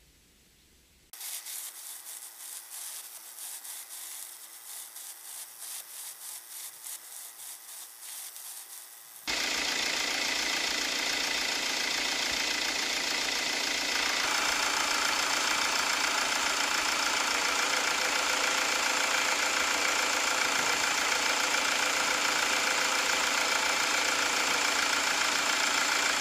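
Mercedes Sprinter van engine idling. For the first stretch it is faint, with an even pulsing beat. About nine seconds in it becomes much louder and fuller, and it rises again a few seconds later.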